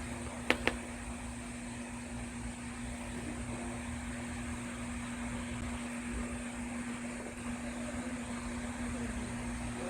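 Steady machine hum holding one pitch over a low rumble and a hiss, with two sharp clicks close together about half a second in.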